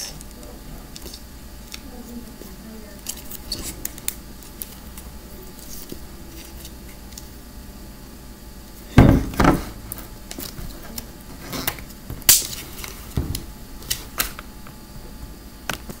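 Hands working at the lid of a small plastic slime tub to get it open: irregular small clicks and taps of plastic, with a louder knock about nine seconds in and a sharp click about twelve seconds in.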